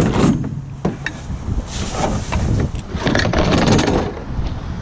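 Husky 3/8-inch 100-position ratchet tightening a carriage bolt on a snow plow blade, with irregular clicks and knocks of the tool against metal.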